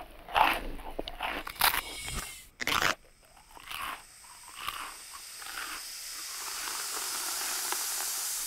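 Cartoon sound effects: irregular crunching, like chewing, for about three seconds, ending in a short loud burst. Then a smooth hiss swells steadily louder through the last few seconds.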